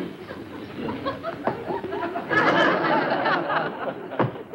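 Studio audience laughing, many voices together, swelling to its loudest about halfway through and then dying away.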